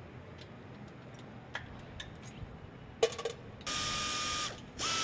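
Light metal clicks of hand tools on jet engine fittings, then a handheld power ratchet wrench runs in a short burst, a steady whine over a hiss, and starts again just before the end.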